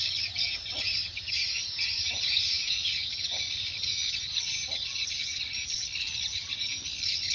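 Dense, unbroken high twittering of many edible-nest swiftlets chirping together, which the keeper takes for a strong response of the birds.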